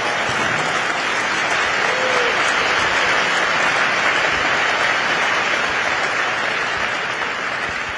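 A large audience applauding steadily, with a single shout about two seconds in; the applause dies away near the end.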